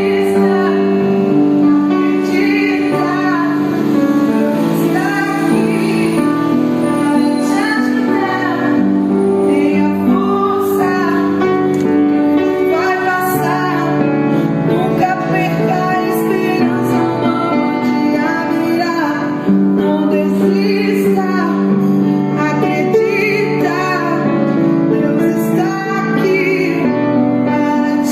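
A woman singing a worship song over held keyboard chords.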